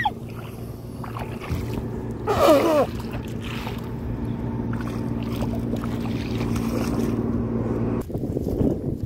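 Steady low motor hum running evenly, with a short falling call about two and a half seconds in; the hum cuts off abruptly about eight seconds in.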